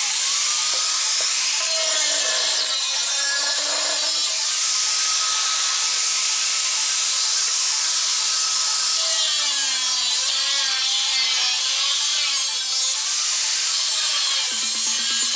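Small corded angle grinder with a thin cutting disc cutting the outer lip off a new sheet-steel wheel-arch repair panel. It runs steadily and loudly, with a whine that holds for a few seconds and then wavers in pitch as the disc is loaded.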